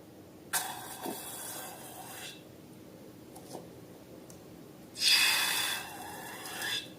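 Air hissing out of a balloon in two rushes, one about half a second in and a louder one about five seconds in.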